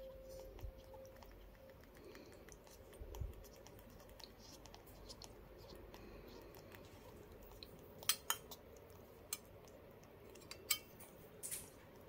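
Metal feeding spoon clicking and scraping against a parrot chick's beak as it eats soft food from it. There are soft ticks throughout, and several sharp clicks come in the last four seconds.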